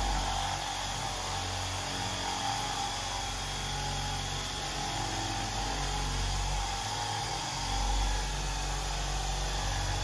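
Small dual-action polisher running steadily against a car door's paint with finishing polish, a steady motor whine over a hiss.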